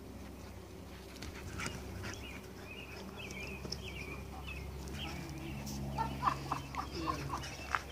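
Dogs playing, with a run of about eight short dog sounds in quick succession over the last two seconds.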